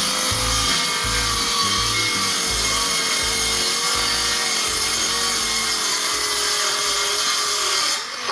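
Power saw cutting OSB board, running steadily under load and stopping suddenly near the end.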